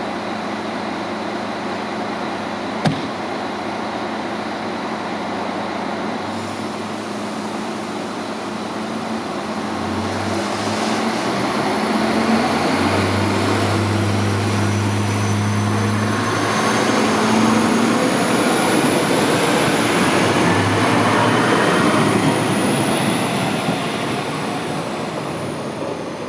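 DB Class 648 (Alstom Coradia LINT) diesel multiple unit pulling out. The diesel engines run steadily at first, then rev up about ten seconds in, with a rising whine as the train gets under way. There is one sharp click about three seconds in.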